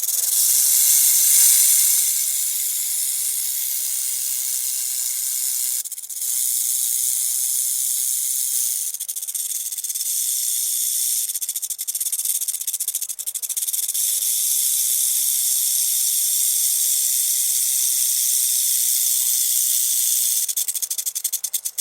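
Snake hissing: one long, high hiss with short breaks about six and nine seconds in, turning choppy near the end before it cuts off.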